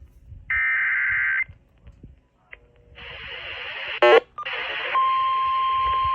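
An Emergency Alert System SAME header, a one-second warbling data burst, sounds about half a second in. It is followed by radio hiss rising to a sharp click near the 4-second mark. About five seconds in, a steady single-pitch warning alert tone begins over the hiss.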